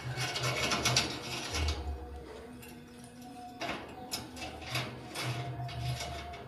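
Lovebird working at corn with its beak: dry, rasping, crackly scraping and nibbling in two spells, with a lull in the middle.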